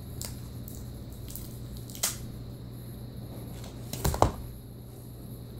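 Hands handling a cardboard Microsoft Surface Book retail box: scattered light taps and a sharp click about two seconds in, then a louder short cluster of knocks and rubbing about four seconds in as the close-fitting lid is slid off the base.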